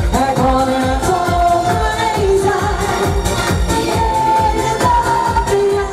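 Pop song with a steady beat and a sung melody of long held notes.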